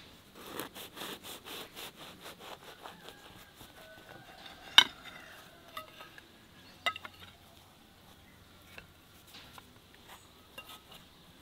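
A knife cuts through the baked crust of a chicken pie in a quick run of rasping strokes, about four a second, for the first few seconds. Then comes a sharp ringing clink about halfway through, the loudest sound, and a smaller clink about two seconds later, followed by faint crumbly clicks as the pie is pulled apart by hand.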